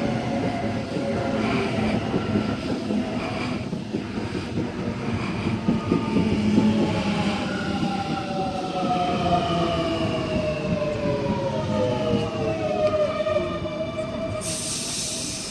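A train running on the rails with a steady rumble and a few clicks over the rail joints, while a whine from its motors falls slowly in pitch through the second half. A short hiss follows near the end.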